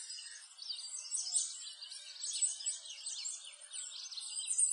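A dense chorus of small birds chirping and twittering, with many quick, high calls overlapping without a break.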